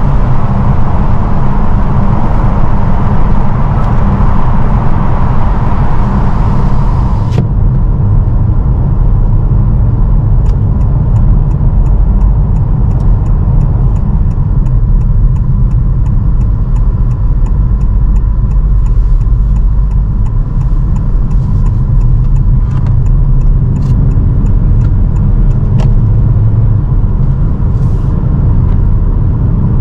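Honda HR-V e:HEV hybrid on the move, with a loud steady low rumble of road, tyre and wind noise. A higher hiss cuts off abruptly about seven seconds in, and after that light regular ticking comes in at roughly three a second.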